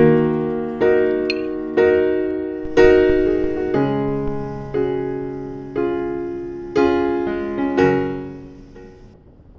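Background piano music: slow sustained chords struck about once a second, each ringing and fading, the last one dying away near the end.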